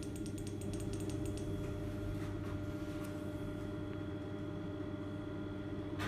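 Kone MonoSpace machine-room-less traction lift car travelling up, a steady hum. A rapid run of light clicks, about eight a second, in the first second and a half.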